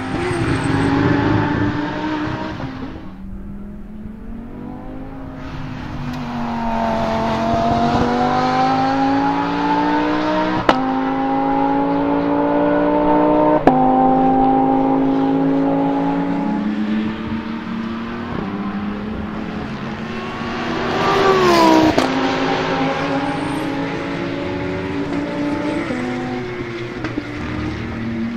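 Lamborghini Huracán Super Trofeo EVO2's naturally aspirated 5.2-litre V10 pulling through the gears, its pitch climbing and dropping sharply with a crack at each upshift, two of them about three seconds apart. A little after twenty seconds in it swells to its loudest and then falls away in pitch.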